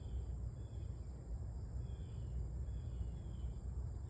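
Insects, crickets or similar, trilling steadily, with faint short chirps about once a second and a steady low rumble underneath.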